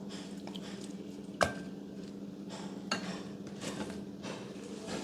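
Slime being handled in a hard container: scattered clicks and taps, with one sharp knock about a second and a half in and a smaller one near three seconds, over a steady low hum.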